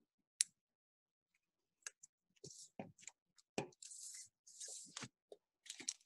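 Scissors snipping through thin clear plastic packaging: a sharp click about half a second in, then a run of short snips and crinkly plastic rustles from about two seconds in.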